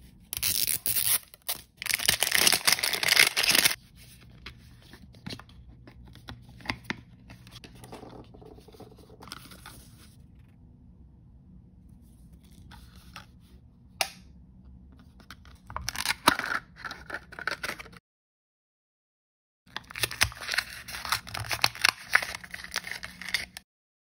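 Plastic wrapping of a toy blind-bag ball being torn and crinkled open by hand, in loud rustling bursts with quieter handling between. There is a short break of complete silence about three-quarters of the way through.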